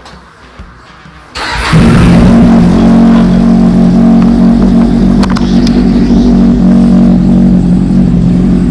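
Kawasaki Z800's inline-four engine starting up about a second and a half in, then running loudly and steadily.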